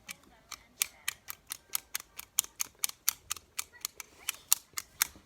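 Plastic fidget toy clicked over and over: sharp, evenly spaced clicks, about four to five a second.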